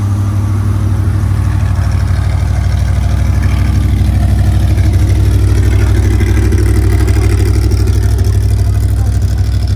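Off-road race vehicle's engine idling close by: a steady, low, rhythmically pulsing running note that swells slightly in the middle.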